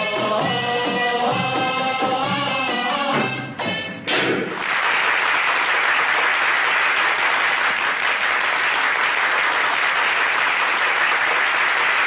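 Saidi folk music for a stick dance ends with a few final drum strikes about four seconds in. An audience then applauds steadily.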